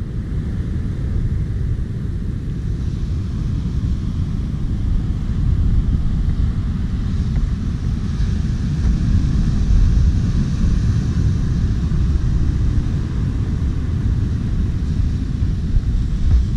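Wind buffeting the camera microphone, a steady, fluttering low rumble, with surf washing faintly behind it.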